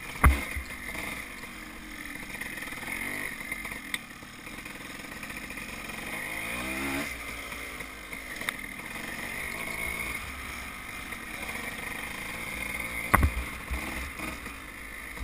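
Dirt bike engine running while riding a trail, revving up about halfway through, heard from the rider's camera. A sharp thump comes just after the start and another near the end.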